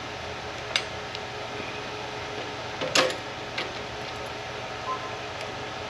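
Pliers clicking and tapping against a locking nut and metal bracket while it is tightened: four short sharp clicks, the loudest about three seconds in, over the steady hum of an electric fan.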